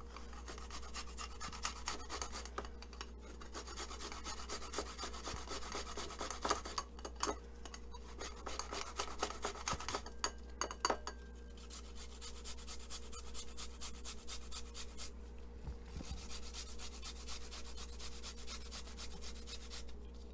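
Fresh ginger root being grated on a small metal hand grater: a steady run of quick rasping strokes, broken by a few short pauses.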